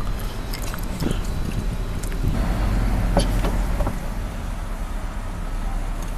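Car driving, a steady low engine and road rumble with a few faint clicks.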